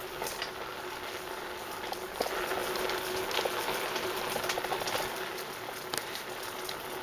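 Bicycle riding along a rough concrete forest trail: a steady crackling hiss of tyres rolling on the surface, with scattered small clicks and rattles from the bike.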